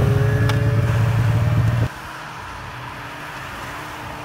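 Polaris Indy snowmobile engine running close by as the sled pulls away, cut off abruptly a little under two seconds in. After that a quieter, steady snowmobile engine hum follows, as another sled comes up the trail from a distance.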